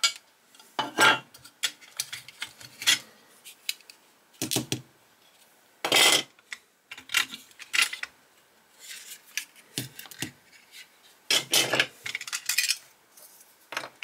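Small screws being undone with a screwdriver on a die-cast model car body: irregular clicks, scrapes and light knocks of metal and plastic parts being handled and set down, with a few louder knocks about a second in, around six seconds and near the end.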